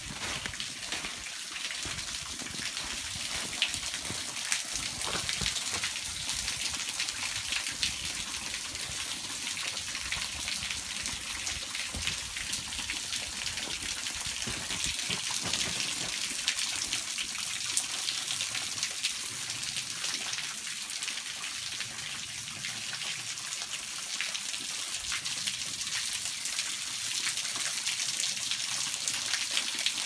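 Water from a partly frozen waterfall splashing and dripping steadily through and off its icicles.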